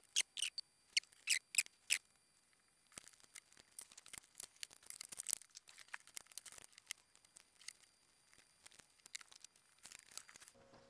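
Faint handling sounds: a handful of sharp clicks as a chip is worked in the EPROM programmer's socket. After a short pause comes a long run of light rustling and small clicks as a laptop power cord is gathered up.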